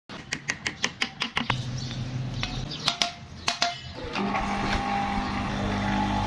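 A quick run of sharp clicks, then a small electric motor starting up and humming steadily from about four seconds in.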